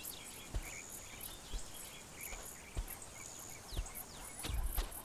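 Quiet natural ambience: short high chirps repeating every second or so and a few quick falling whistles, over soft low thuds about once a second from elephants walking on sand.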